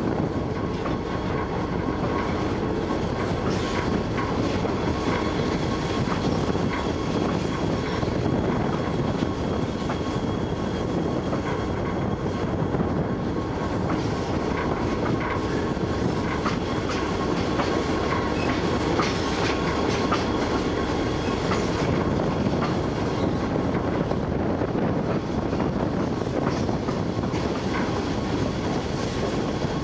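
Three-rail model train running on metal track, heard close up from on board: a steady rumble of wheels and motor, with scattered clicks as the wheels pass over rail joints.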